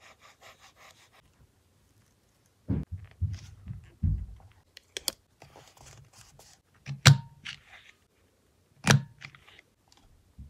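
Close-up handling of paper pieces on a journal page: soft paper rustling, a run of low thumps as pieces are pressed and rubbed down, and a few sharp taps, the loudest about seven and nine seconds in.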